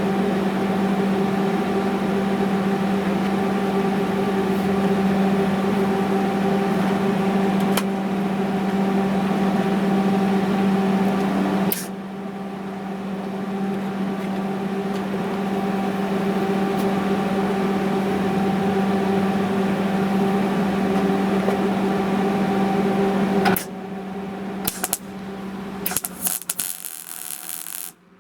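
Steady electric machine hum, dropping in level about twelve seconds in, then switching off with a few clicks near the end.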